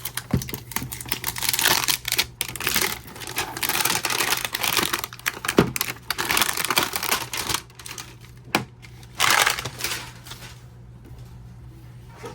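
Cardboard and plastic toy packaging being opened by hand: irregular bursts of rustling, tearing and sharp clicks, busiest through the first two thirds and with a last short burst near the end.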